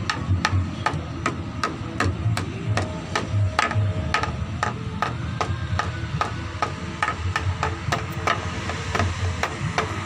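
Bamboo struck again and again with the hand, about three sharp strikes a second in an uneven rhythm. Each strike rings briefly with a pitched tone.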